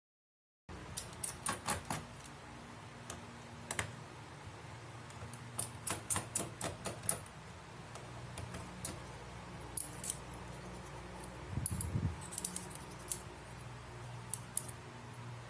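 Small sharp clicks and light metallic taps in quick clusters, from laptop parts and small tools being handled. A steady low hum runs underneath.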